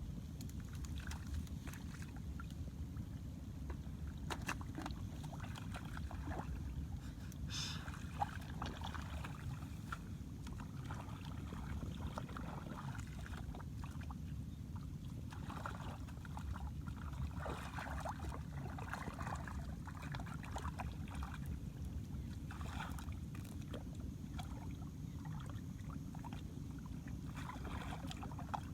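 Intermittent sloshing and splashing of shallow water, as hands and feet move through a flooded field, over a steady low wind rumble on the microphone.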